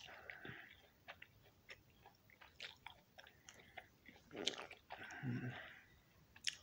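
Close-up chewing of juicy orange slices: many small wet mouth clicks and smacks, with a louder stretch of chewing about four and a half to five and a half seconds in.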